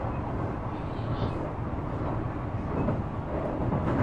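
Interior running noise of a Shizuoka Railway A3000-series electric train: a steady rumble of wheels on rail and the running gear while the car travels along the line.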